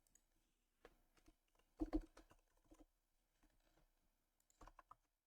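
Faint computer keyboard keystrokes: a few scattered taps and short clusters of typing, the loudest about two seconds in.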